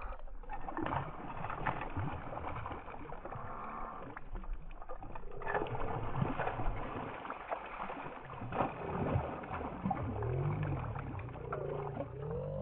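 A hooked chain pickerel splashing and thrashing at the water's surface as it is reeled in beside a kayak, with scattered knocks and clicks from the reel and hull. A few low wavering tones come in near the end.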